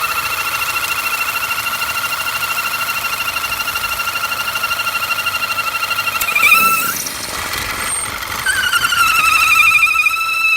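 2009 Audi A4 2.0 quattro engine running with a loud, steady, high-pitched squealing whistle from its PCV valve diaphragm, fluttering rapidly. About six and a half seconds in the whistle jumps up in pitch and breaks off, then returns about two seconds later, dipping in pitch before it settles. The whistle is the sign of a failed PCV diaphragm, which also left the engine idling rough and down on power.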